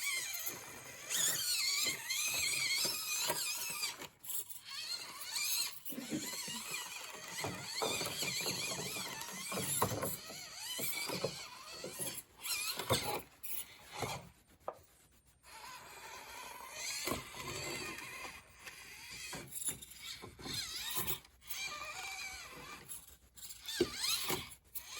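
SCX24 micro crawler's Barrage motor and gears whining in stop-start throttle bursts, the pitch rising and falling, with scattered clicks and knocks. It drops almost to nothing for a moment about halfway through.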